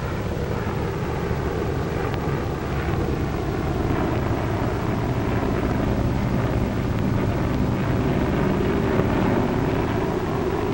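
Propeller aircraft engines droning steadily, mixed with a rushing, wind-like noise.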